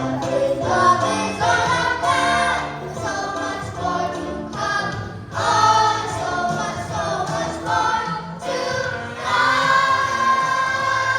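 A choir singing a gospel-style song with musical accompaniment, holding long notes near the end.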